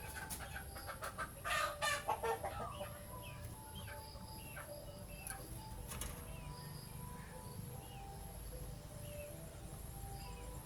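A bird gives a loud call lasting about a second, starting about a second and a half in, followed by small scattered chirps.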